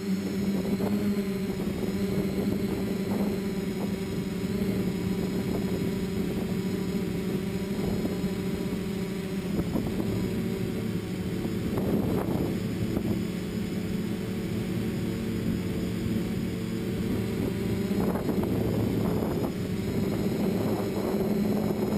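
Quadcopter's electric motors and propellers running in flight, a steady buzzing drone as heard from the camera mounted on the copter, with a few bursts of rustling noise about halfway through and near the end.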